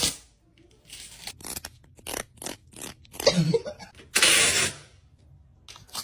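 Sticky tape being pulled and peeled in a run of short tugs, then one longer, louder rip about four seconds in.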